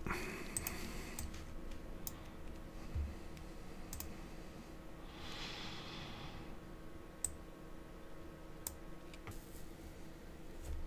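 Faint, scattered clicks of a computer mouse at irregular moments while a designer works in Photoshop.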